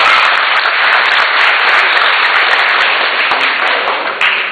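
Crowd cheering and clapping, loud and continuous.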